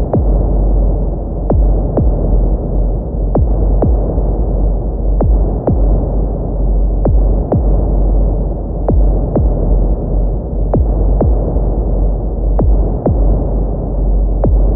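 Heartbeat sound effect: slow double thumps (lub-dub) repeating about every two seconds, over a steady low droning hum.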